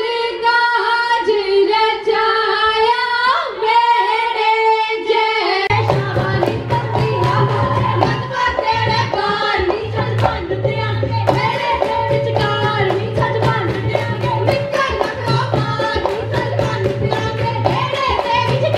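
Women singing a Punjabi folk song for a Giddha dance, their voices amplified. About six seconds in, a drum beat and rhythmic hand clapping join the singing.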